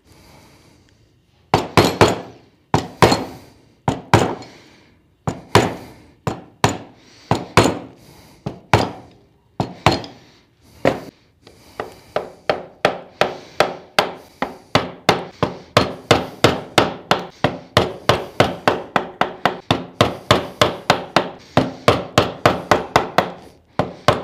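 Wood chisel driven into a board by mallet blows, chopping away wood to level a layer down to a marked line. The blows come in short, spaced groups at first, then about halfway through settle into a steady run of lighter taps, about three a second.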